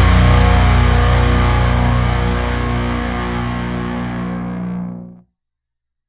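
Heavy metal music ending on a held, distorted electric guitar chord that slowly fades and then cuts off about five seconds in, leaving silence.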